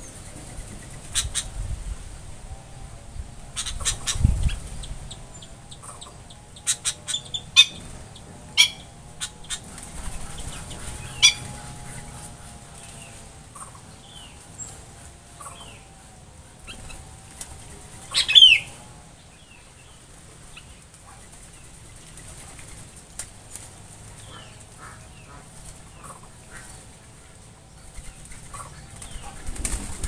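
Small birds' wings flapping in an aviary: a series of sharp, quick flutters as birds land and take off, with a louder brief flurry about eighteen seconds in. Scattered short chirps come between the flutters.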